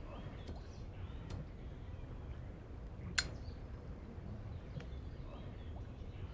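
Quiet outdoor ambience with a low steady rumble, broken by a few sharp ticks. The clearest tick comes about three seconds in.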